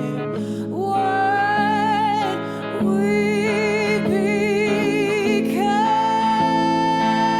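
A woman singing long held notes with vibrato, no clear words, over a guitar accompaniment.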